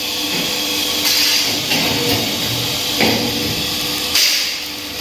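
Metalworking workshop noise: a steady hiss and hum with irregular sharp knocks of metal being struck, roughly one every second or so.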